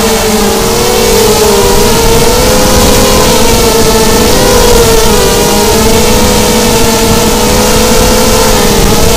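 FPV miniquad's brushless motors and propellers buzzing loudly from on board, several close tones weaving up and down and crossing as the throttle changes, over a rush of noise.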